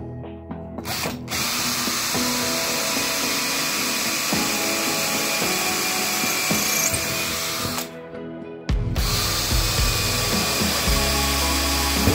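Electric drill boring pilot holes through stacked acacia wood slats, running steadily in two long runs with a brief stop about eight seconds in.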